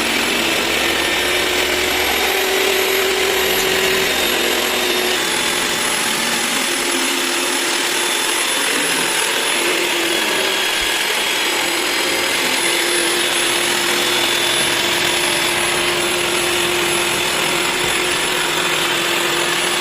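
Electric jigsaw cutting through a sheet of drywall (gypsum plasterboard), running steadily without a break.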